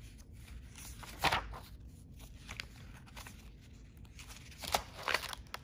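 Paper pages of a spiral-bound workbook being turned and handled: a few short rustles and flips, the loudest about a second in and two more near the end.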